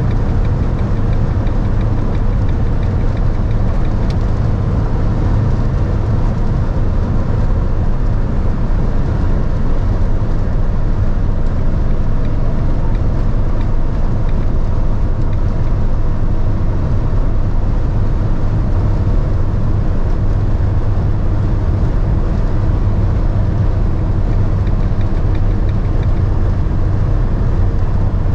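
In-cabin sound of a 2013 Fiat Ducato 150 Multijet van cruising flat out on the autobahn at around 160 km/h: a steady low drone from its 2.3-litre four-cylinder turbodiesel under load, blended with wind and tyre noise.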